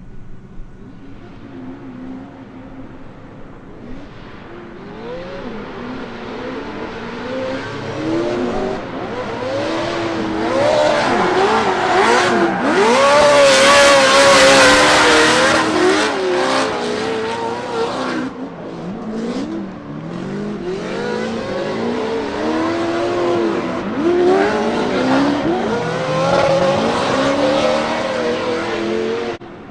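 Drift cars competing: engines revving up and down over and over, with tyre squeal. It builds to its loudest about halfway through, as the cars come close, then eases off.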